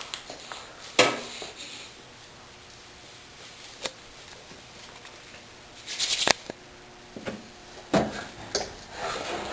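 Rustling of clothes and a few sharp clicks and knocks as pockets are searched by hand, in short scattered bursts with quiet gaps between.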